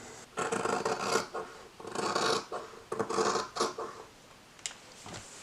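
Scissors cutting through fabric in three long rasping strokes, followed by a few light ticks.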